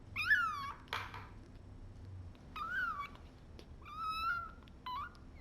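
Orphan kitten, about three weeks old, mewing in high-pitched cries, about four in a row, while it is learning to take a bottle.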